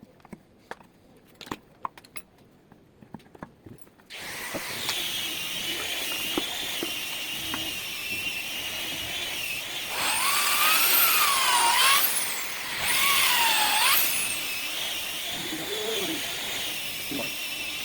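A few light clicks and knocks, then from about four seconds in a power drill runs steadily with a high whine. It grows louder twice in the middle, its pitch dipping and coming back up each time.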